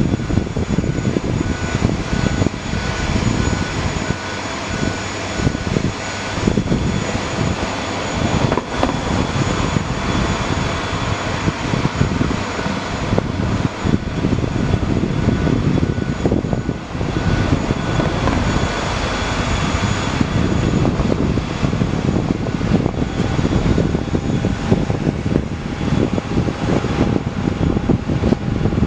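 ATR 42-600 turboprop's engine running steadily during pushback, a constant high turbine whine over a dense rumble.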